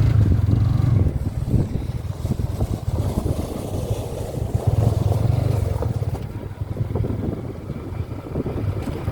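Off-road vehicle riding over rough ground: a low engine drone with irregular rattles and jolts, and wind noise on the microphone.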